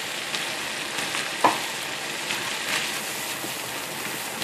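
Minced chicken stir-frying in hot oil in a pan, with a steady sizzle and a spatula scraping and clicking against the pan. There is a sharp clink about one and a half seconds in.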